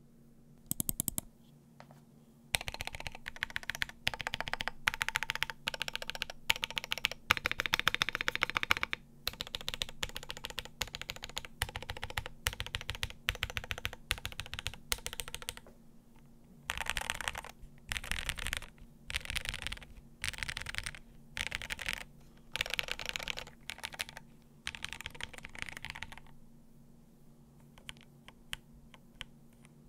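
Mechanical keyboard (Cannon Keys Brutal V2 1800 with Chocolate Toffee switches on a carbon-fibre half plate) being typed on in rapid bursts of keystrokes, with short pauses between the bursts.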